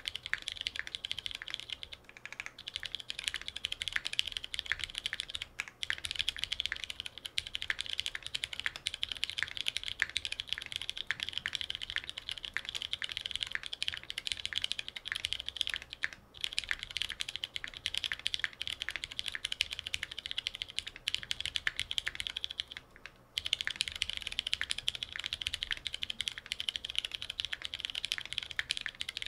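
Steady fast typing on a Moment R0 custom mechanical keyboard with lubed, filmed Butter Brown switches, a half-aluminum plate and GMK Striker ABS keycaps: a dense stream of key clacks broken by a few short pauses.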